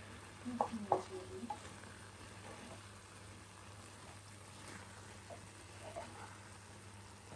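Wooden spatula stirring thick, simmering oats khichuri in a non-stick pot, over a soft steady sizzle from the pot. A few light knocks come in the first second or two.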